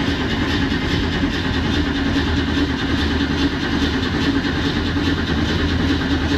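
Starter motor cranking a 1970 Ford Mustang's engine steadily, with no sign of it firing or catching.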